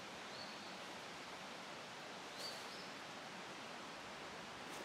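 Faint, steady outdoor background hiss, with three faint, short high chirps about two seconds apart.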